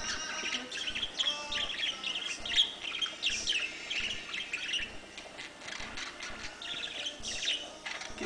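Pet budgerigar singing its warbling song: a fast, rambling run of chirps, squeaks and chattering notes, busiest in the first five seconds, with another burst near the end.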